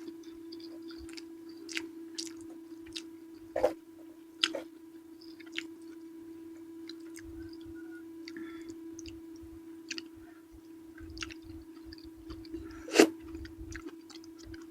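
Close-up mouth sounds of someone eating purple eggplant with sambal: wet chewing clicks and smacks, with a few louder sharp bites, the loudest near the end. A steady low hum runs underneath.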